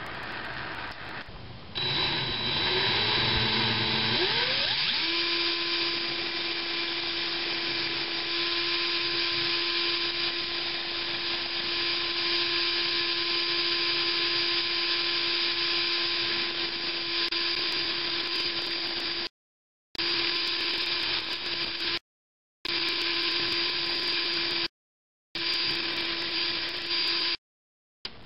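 Cordless drill spinning a small metal model-locomotive wheel held in its chuck, with a steel scraper held against the turning wheel. After a fainter hiss for the first second and a half, the drill starts and its whine rises over a few seconds, then runs steadily. The sound cuts out abruptly four times in the last nine seconds.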